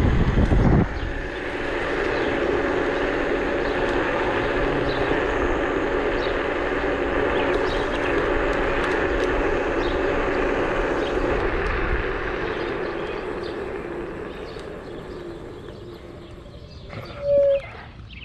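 Emove Cruiser electric scooter riding along: a steady hum from the motor and tyres on asphalt, with wind buffeting the microphone for the first second. The hum fades away as the scooter slows to a stop, and a short loud squeak comes near the end.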